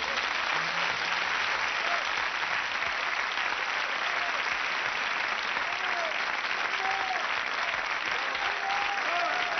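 A studio audience applauding steadily, with dense, even clapping.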